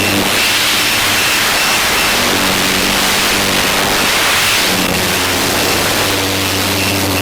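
Tarot 650 multirotor in flight, heard from its onboard camera: a loud, steady rush of wind and propeller noise, with the motors' low hum stepping up and down in pitch as the throttle changes.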